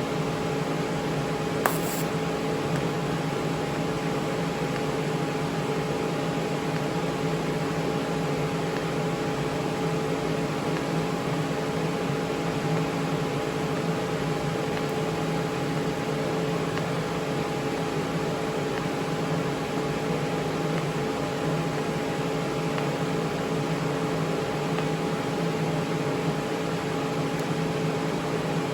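Steady machine hum with several fixed tones over a constant hiss, with one sharp click about two seconds in.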